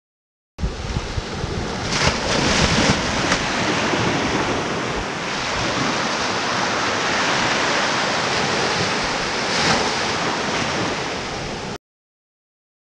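Ocean surf washing up a sandy beach, heavily overlaid by wind buffeting the microphone, with a couple of louder swells as waves break. It starts abruptly about half a second in and cuts off abruptly near the end.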